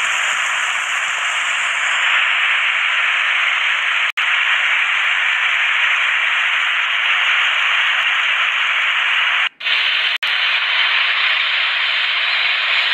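Steady static-like hiss with no rumble beneath it. It drops out briefly about four seconds in and twice more near nine and a half and ten seconds.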